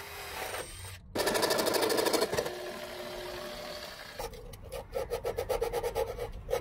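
Power tools cutting and drilling: a short run of a cordless drill/driver near the start, then a corded jigsaw cutting through a plywood panel with a fast, rhythmic chatter.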